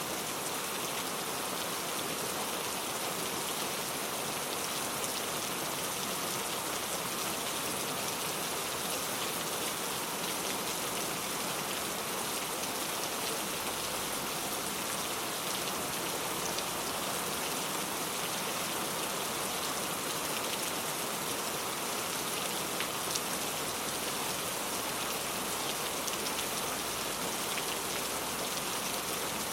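Steady rain ambience: rain falling on a surface, a constant hiss with scattered fine drop ticks.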